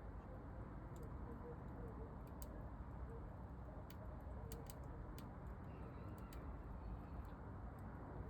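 Wood fire crackling in a glass-fronted camping stove: sparse, irregular sharp snaps over a faint steady low background noise.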